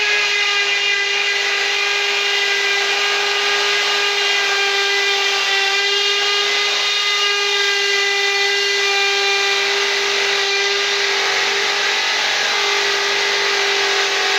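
Cordless drill boring down through a wooden 2x4 into a concrete floor, its motor running with a steady whine at one unchanging pitch.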